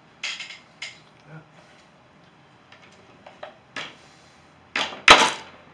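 Painting tools being handled at a wooden easel: a string of short clicks, knocks and brief scrapes, with a louder double knock near the end.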